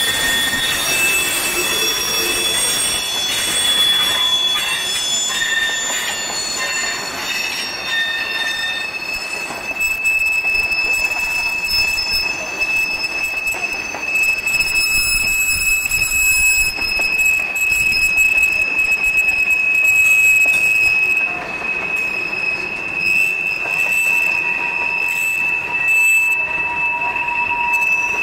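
Wheels of a long mixed freight train's tank cars and gondolas squealing as they roll through a tight curve, several high steady squeals at once, one holding on through most of the passage, over the rumble of the cars. A lower squeal joins near the end.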